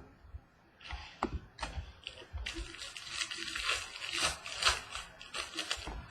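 Plastic packaging crinkling as trading cards are handled and unwrapped: a few separate clicks, then a second or so later several seconds of dense crackling.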